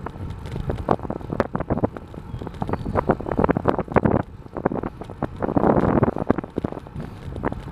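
Wind buffeting the microphone of a camera on a moving bicycle, with irregular knocks and rattles from the ride and a louder rush of noise a little past the middle.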